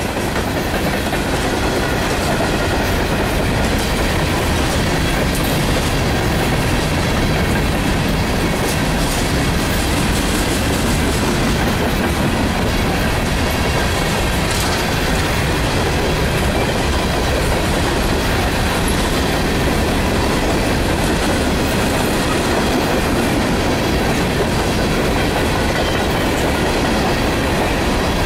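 Empty steel coal hopper cars of a freight train rolling past close by, their wheels running on the rails in a steady, loud noise.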